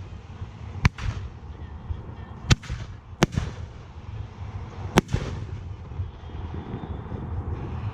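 Fireworks display: four sharp bangs of exploding fireworks, spaced unevenly over about four seconds, each with a short echo trailing off, over a steady low background rumble.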